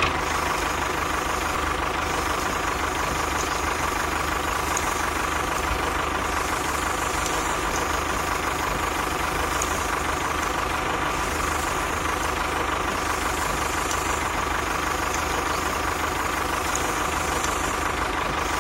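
A motor running steadily and evenly, with a constant whine over a busy mechanical noise.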